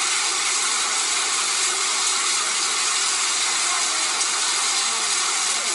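Heavy hailstorm: large hailstones and rain pelting down into a swimming pool and onto the ground around it, a dense, unbroken hiss at a steady level.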